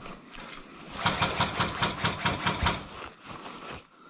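Airsoft rifle firing one rapid full-auto burst of evenly spaced shots that starts about a second in and lasts nearly two seconds.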